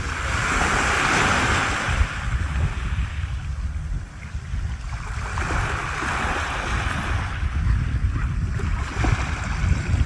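Small waves washing onto a pebble shore, the hiss of the wash swelling and fading about three times, over a steady low wind rumble on the microphone.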